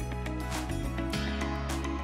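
Background music: sustained bass notes that change every second or so, under regular sharp percussive hits.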